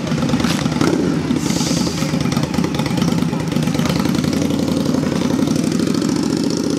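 A motor vehicle's engine running steadily at a street intersection, a low, even drone with no speech over it.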